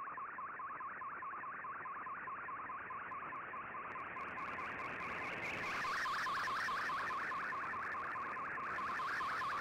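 Shortwave radio signal carrying an Fldigi MFSK picture transmission: a warbling tone sweeping rapidly and repeatedly up and down over band hiss, the data sound of an image being sent line by line. It grows louder about six seconds in, with a few crackles of static just before.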